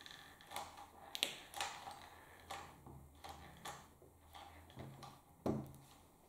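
Hot glue gun and small 3D-printed plastic parts being handled on a bench: a string of irregular light clicks and taps, with one louder knock about five and a half seconds in.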